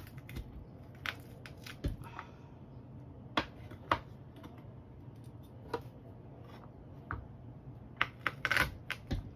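Garlic cloves crushed under the flat of a chef's knife on a wooden cutting board: scattered sharp knocks and taps of the blade and cloves against the board, with a quick run of knocks near the end.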